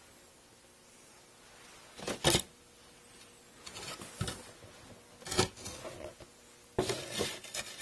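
Thin Sitka spruce guitar top plates being handled: short knocks and rubs of wood on wood. There is a loud pair of knocks about two seconds in, a few single ones after that, and a quick cluster near the end.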